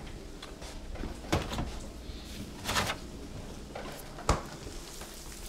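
Kitchen handling noises: a few soft knocks and a sharp clunk about four seconds in, as a plastic gallon milk jug is fetched from the refrigerator.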